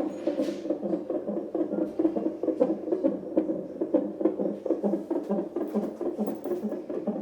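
Unborn baby's heartbeat picked up by the Doppler ultrasound transducer of a CTG (cardiotocograph) monitor: a fast, even pulsing whoosh.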